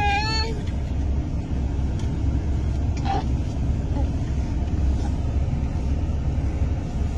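Steady low rumble of an idling game-drive vehicle's engine. A high, wavering call ends about half a second in.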